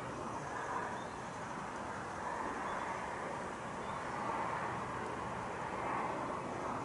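Steady outdoor ambience: an even rushing background noise with no distinct events.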